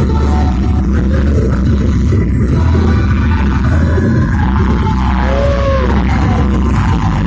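Loud, bass-heavy music for an acrobatic rock'n'roll dance routine, played over a hall's sound system, with a short swooping tone in the music about five and a half seconds in.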